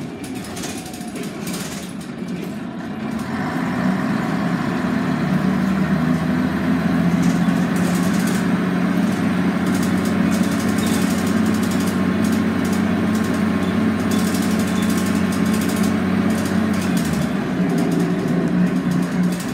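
Scania N113CRB bus's rear-mounted 11-litre six-cylinder diesel heard from inside the passenger cabin, running under way with road noise. The engine note grows louder about three seconds in, holds steady, then changes near the end.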